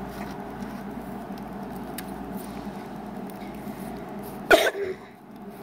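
A person clears their throat once, briefly, about four and a half seconds in, over a steady low background hiss.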